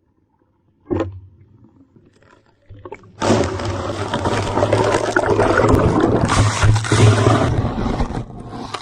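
Near silence with a brief knock about a second in, then a loud, steady rushing noise of surf and wind on the beach that starts suddenly about three seconds in.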